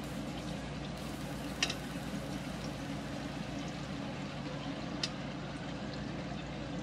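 Chicken and whole tomatoes frying in a pan: a steady sizzle over a low hum, with two light clicks of metal tongs against the pan, about one and a half seconds in and again near five seconds.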